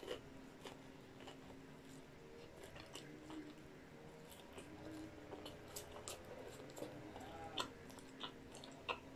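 A person chewing and biting a fried-chicken wrap and fries close to a microphone. Soft, wet mouth clicks and smacks go on throughout, with a few sharper clicks in the last two seconds.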